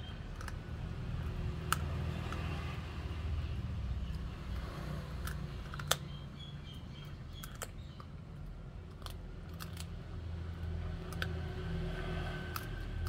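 A puppy gnawing on a duck bone: irregular sharp clicks and cracks of teeth on bone, over a low steady rumble.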